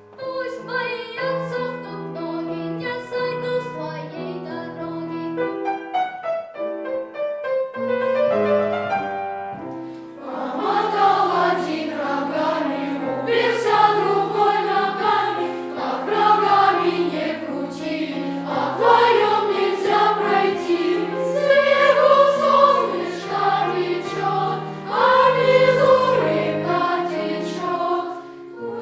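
Boys' choir singing a children's song with piano accompaniment. The piano plays alone for about the first ten seconds, then the voices come in.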